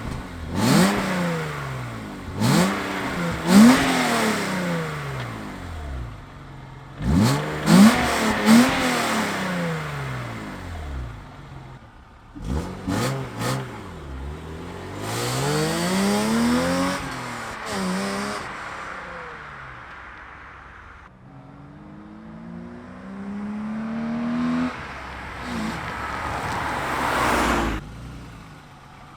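Several cars driving past one after another, about four passes. Each engine revs up and then falls away in pitch as the car goes by.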